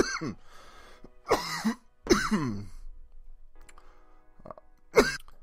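A man coughing hard in four harsh bouts after inhaling a dab of cannabis concentrate, a hit he says was fairly dry at the end. Quiet background music plays between the coughs.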